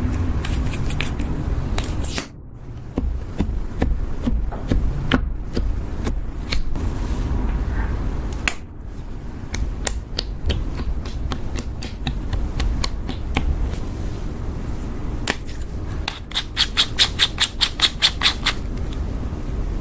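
Close-up handling of makeup tubes and pens over clear slime: scattered sharp clicks and taps over a low rumble. Near the end comes a fast, even run of about a dozen clicks, about six a second, as a twist-up lipstick crayon is wound up.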